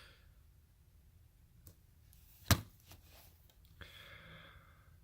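Plastic Blu-ray case being handled: one sharp click about halfway through, with a few fainter clicks around it.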